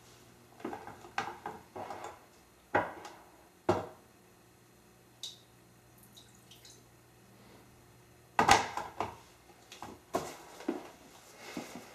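Household items being picked up and set down on a kitchen counter: scattered knocks and clatters with quiet gaps, the loudest cluster about eight and a half seconds in, over a faint steady low hum.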